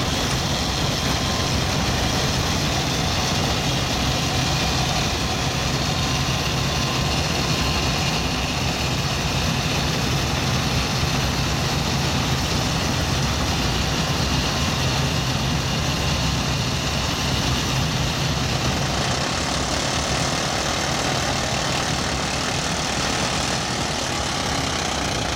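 Massey Ferguson 400 combine harvester running steadily, a constant low engine drone with machinery noise over it.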